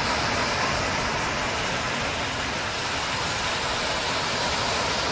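Steady rushing noise of surf breaking on a beach, with wind on the microphone.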